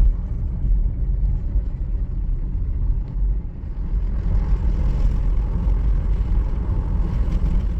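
Strong gusty wind buffeting the microphone: a loud, uneven low rumble that rises and falls with the gusts.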